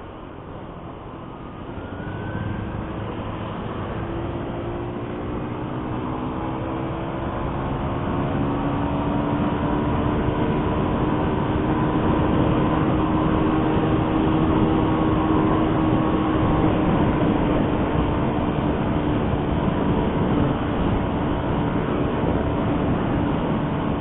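A motor vehicle's engine runs under a steady rush of road and wind noise. Its pitch and loudness rise slowly over about ten seconds as it speeds up, then hold steady at speed.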